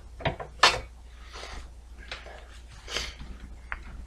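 A desktop computer case being handled: a few sharp knocks and clicks, the loudest just under a second in, with short scraping or rustling noises between them.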